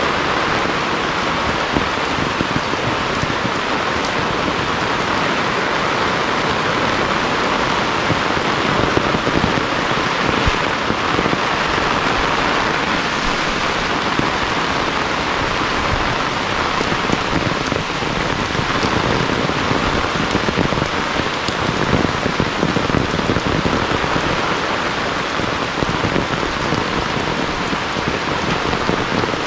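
Heavy rain falling steadily: a dense, even hiss made of countless small drop hits, with no let-up.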